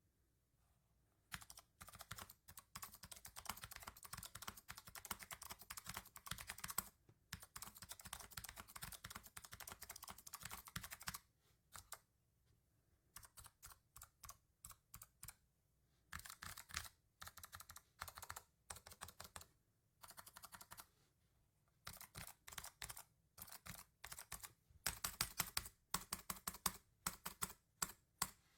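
Macally 75% mechanical keyboard with clicky switches being typed on: two long runs of fast, continuous typing with a short break between them, then after a pause slower, separate keystrokes and short bursts, the loudest clicks near the end.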